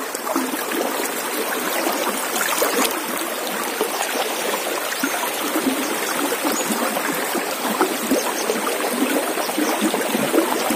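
River current rushing steadily around a person standing waist-deep in it.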